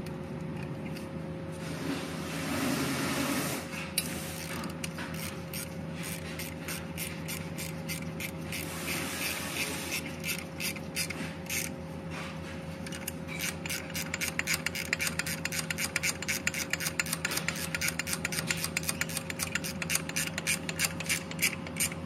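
Ratchet wrench clicking in quick runs, working a fastener on a replacement truck starter, after rustling from gloved hands around the starter. A steady faint hum runs underneath.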